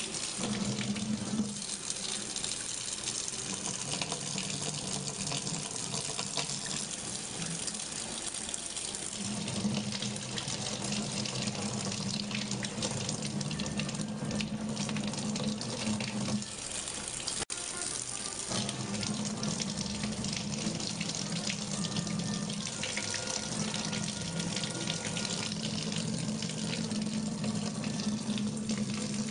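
Kitchen faucet running, a steady stream of water splashing into the sink, with a low steady hum in long stretches.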